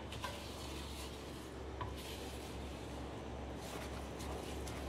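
A wooden spatula stirring and scraping a thick mix of mawa, grated coconut and sugar syrup around a metal kadhai: irregular rubbing strokes with a couple of light knocks against the pan. A steady low hum lies underneath.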